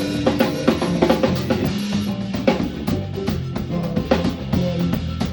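Live band music: a drum kit with kick and snare keeping a steady beat over bass and other pitched instruments.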